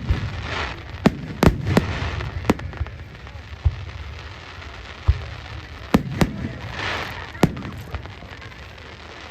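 Aerial firework shells bursting: sharp bangs in two quick clusters of several, each with a crackling hiss after the bursts, dying down near the end.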